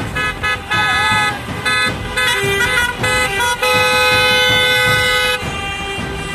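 Car horns honking from a passing convoy of cars: a string of short toots, then one long horn blast of about two seconds past the middle, over the noise of cars driving by.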